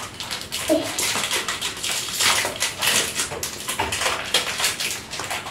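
Small plastic candy wrappers crinkling and tearing as they are opened and handled, an irregular run of crackles.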